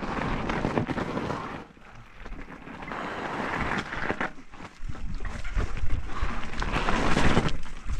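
Mountain bike descending a rough dirt-and-rock trail, heard from the rider's helmet camera: wind rushing over the microphone and tyres grinding over dirt and stones, with many short rattles and knocks from the bike. The noise dips briefly about two seconds in.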